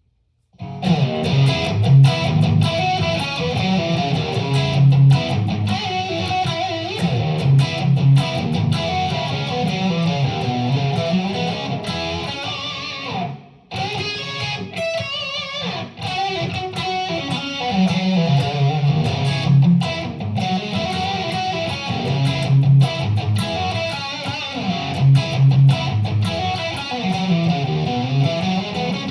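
West Creek Revenge electric guitar played through an amplifier in riffs and picked notes, with a short break about thirteen and a half seconds in before the playing resumes.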